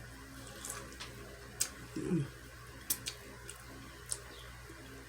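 Biting and chewing corn on the cob close to the microphone: a handful of sharp, separate crisp clicks as the kernels break, with a short falling voice sound about two seconds in.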